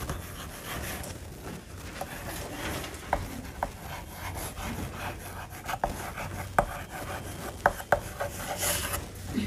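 Chalk writing on a blackboard: a steady scratching of chalk across the board, with a few short sharp taps scattered through it.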